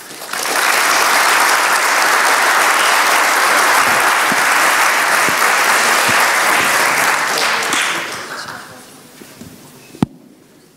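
Audience applauding for about eight seconds, then dying away, with one sharp knock near the end.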